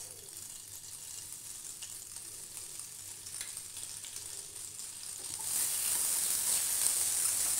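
Desi ghee melting and sizzling in a hot non-stick kadhai. The sizzle grows louder about five and a half seconds in, as a wooden spatula spreads the melting ghee across the pan.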